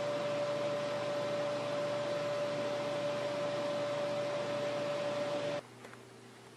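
Steady hiss with a constant high hum, the noise of a running fan or appliance. It cuts off suddenly about five and a half seconds in, leaving a much quieter room.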